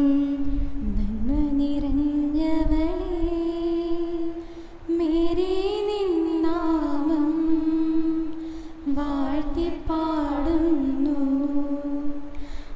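Women singing a slow devotional hymn melody into microphones, with long held and gently gliding notes and short pauses between phrases about five and nine seconds in.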